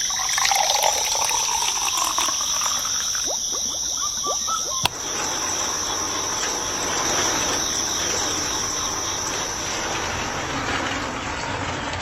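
Water running and pouring, with gliding pitches in the first few seconds and a fuller, steady hiss after a sharp click about five seconds in, over a constant high-pitched whine.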